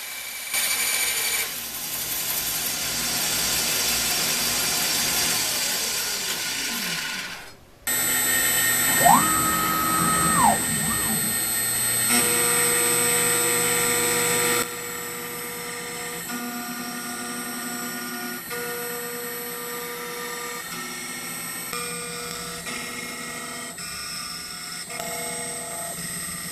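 A vertical bandsaw cutting through a thick aluminum plate. Then a CNC router runs as it mills aluminum, with whining tones that rise, hold, fall and switch on and off as the machine moves.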